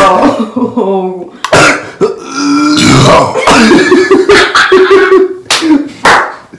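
A man burping and coughing loudly in a string of drawn-out, gassy bursts after shotgunning a can of beer, the carbonation coming back up.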